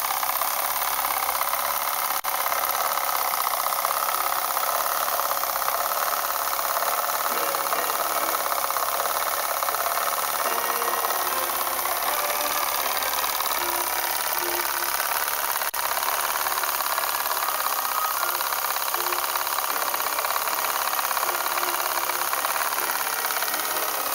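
Small model steam engine for a paddle boat running steadily on compressed air, a continuous rapid hissing exhaust beat with mechanical clatter.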